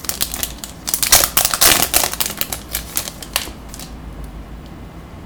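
A trading card pack's wrapper being torn open and crinkled, a quick run of crackly rustles lasting a couple of seconds that dies down after about three and a half seconds into quieter handling.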